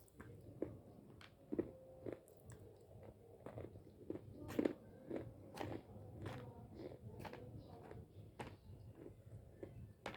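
Close-up biting and chewing of chunks of Hyderabadi white edible clay (white khadi), a string of irregular dry crunches with the loudest about one and a half and four and a half seconds in.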